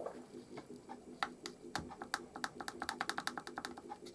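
Small push-buttons on a Sanyo clock radio's button board clicking as they are pressed over and over in quick succession. The minute-advance button responds only now and then, which the owner puts down to bad solder joints. A faint steady hum runs underneath.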